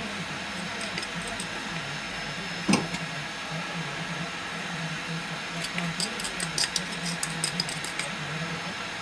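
Steady low kitchen hum, with one sharp knock about three seconds in and a quick run of light clicks and taps from about six to eight seconds in as seasonings and sugar are spooned from small dishes into the pot.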